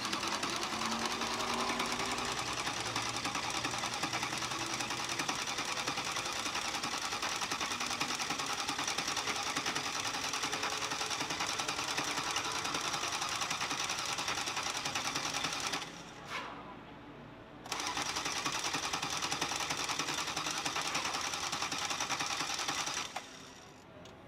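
Tyrrell 002's Ford-Cosworth DFV V8 idling at warm-up with a fast, even, rattly chatter. It drops away briefly about sixteen seconds in and stops near the end.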